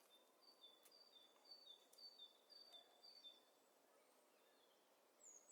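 Faint bird song: a series of high whistled notes alternating between two pitches, about two a second, for the first three and a half seconds, then a brief sliding high note near the end.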